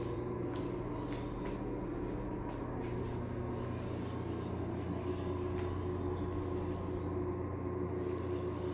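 Steady low mechanical hum, like a machine running, with a few faint scattered clicks.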